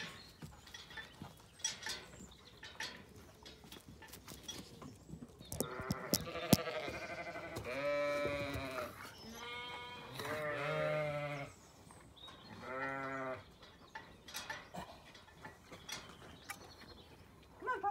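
Zwartbles sheep bleating: several long bleats, some overlapping, from about five to fourteen seconds in. Scattered sharp clicks and knocks, the loudest about six and a half seconds in.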